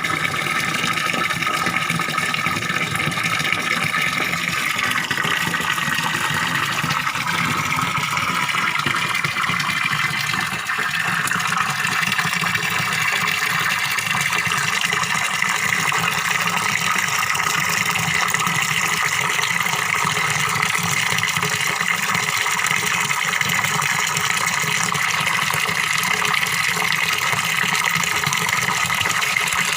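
Small pond waterfall splashing and gurgling steadily, water falling continuously into a fish pond.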